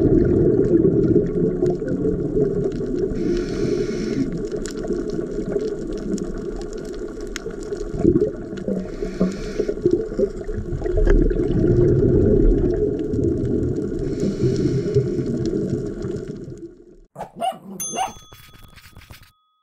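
Underwater rumble and bubbling from a scuba diver's breathing, with a hiss of breath about every five to six seconds. About seventeen seconds in it cuts off, and a short chiming jingle with a few clicks follows.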